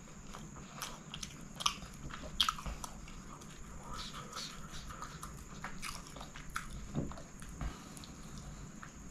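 Close-up chewing of chicken kottu, with irregular wet mouth clicks and smacks, a few louder than the rest, while fingers pick through the food on the plate.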